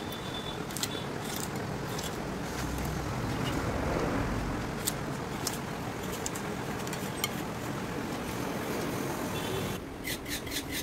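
Steady road traffic noise, swelling as a vehicle passes about four seconds in, with a few scattered sharp clicks.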